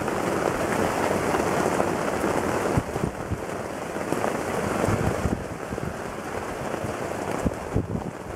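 Rain falling on a portaledge's fabric rain fly: a dense hiss with many separate drop hits close to the microphone. The downpour eases a little about five seconds in.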